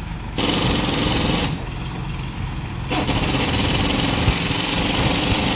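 Workshop machinery runs in two loud bursts of harsh noise, the first about a second long and the second about three seconds.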